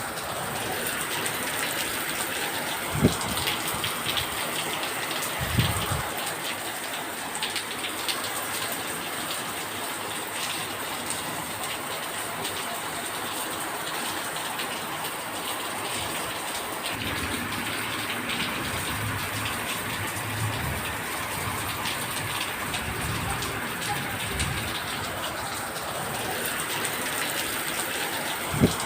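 Steady rain falling, an even hiss of rain and drips, with a few brief louder thuds about three seconds in, again a few seconds later, and near the end.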